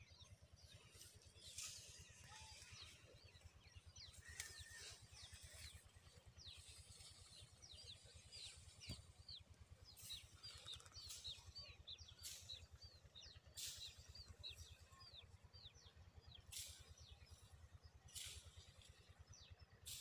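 Faint chirping of small birds: many short, high, falling notes, more of them in the middle stretch. Brief bursts of rustling come now and then.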